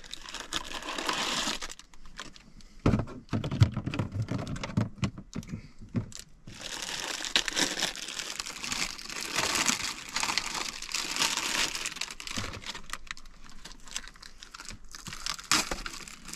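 Cardboard box of taco shells being opened, then its plastic inner bag crinkling as it is handled and pulled open. There is a cluster of low knocks about three to five seconds in, and dense crinkling for several seconds after that.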